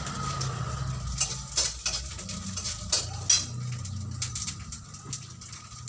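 Metal utensils clinking several times against steel bowls and a steel kadai, over a light sizzle of cumin seeds and dried red chillies put into hot oil for tempering.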